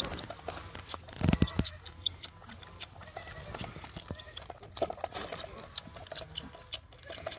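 A goat kid sucking milk from a bottle nipple: a run of short wet smacking clicks, with a loud bump about a second in.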